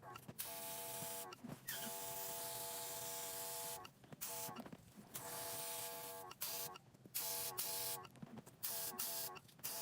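Airbrush spraying in repeated bursts of hissing air as the trigger is pressed and released, the longest lasting about two seconds, with the small airbrush compressor's motor whining steadily under the longer bursts.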